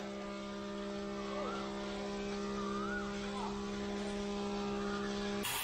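A steady hum of a few held low tones, with faint rising and falling chirps over it; it cuts off abruptly near the end.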